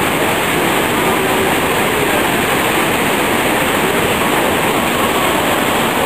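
Steady rush of whitewater pouring over a rocky waterfall rapid.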